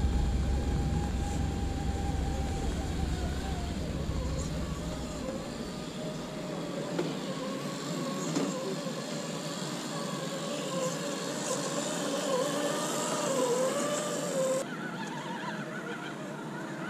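Radio-controlled scale crawler's electric motor and gearing whining, the pitch wavering up and down with the throttle as it crawls over rock. Wind rumbles on the microphone for the first few seconds.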